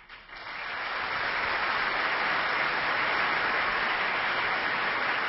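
Audience applauding: the clapping swells over the first second and then holds steady.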